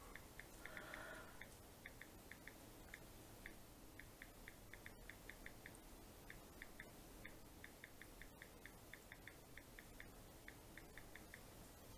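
Faint ticks of a smartphone's on-screen keyboard as a text message is typed, coming a few taps a second in irregular runs with short pauses.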